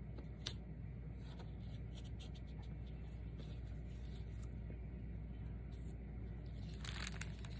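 Faint rustling, scratching and light taps of hands pressing and folding glued fabric over a paper picture on a cutting mat, with a slightly louder scrape about seven seconds in, over a steady low hum.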